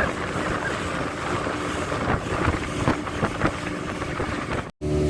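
Wind buffeting the microphone over a choppy sea, with splashes and a faint steady boat-engine hum. Just before the end it cuts to a boat engine running much louder.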